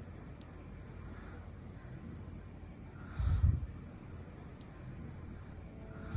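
Crickets chirping steadily, about three short high chirps a second, as night ambience. A dull low thump about three seconds in.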